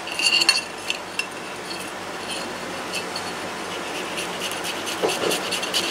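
Boiled potato rubbed across a small handheld metal grater: a steady soft rasping, with a few light clinks of the grater against the plate in the first half-second.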